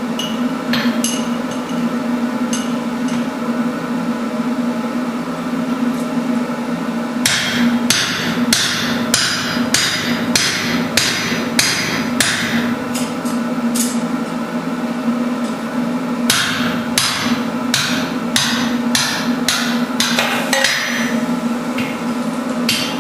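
Hand hammer striking hot steel bar on a Hofi anvil: a few light scattered blows, then two runs of steady blows at about two a second, starting about seven seconds in and about sixteen seconds in, over a steady low hum. The blows drive a punch and drift through the bar to open a hole.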